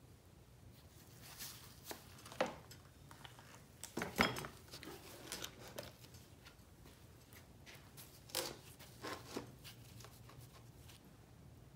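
Hand tools and metal parts being handled during a Honda ATC 200X engine teardown: scattered clinks, scrapes and knocks at irregular intervals, the loudest cluster about four seconds in.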